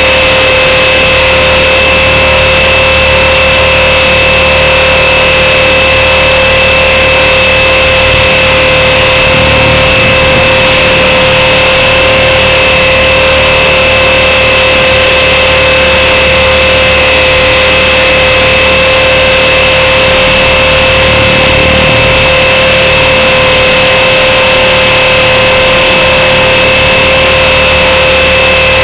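Electric motor and rotor of a Blade 400 RC helicopter running in flight, heard up close from a camera mounted on the helicopter: a loud, steady whine at constant pitch over a rushing hiss of rotor noise.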